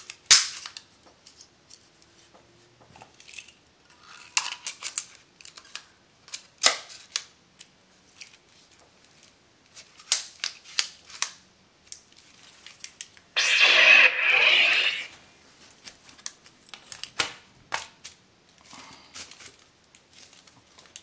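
Metal lightsaber hilt parts being handled and fitted together: scattered clicks, taps and knocks as the electronics chassis slides into the aluminium tube and the end pieces go back on. About thirteen seconds in, a louder rushing hiss lasts under two seconds.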